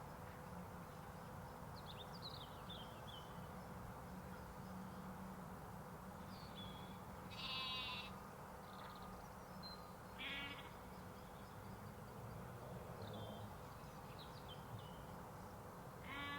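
Sheep and lambs bleating in a few short, quavering calls, about seven seconds in, again about ten seconds in and once more at the very end, over a steady low background hum. Faint high chirps come in between.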